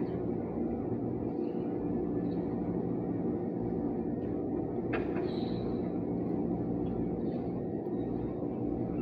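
Steady low machine drone, with a brief knock about five seconds in.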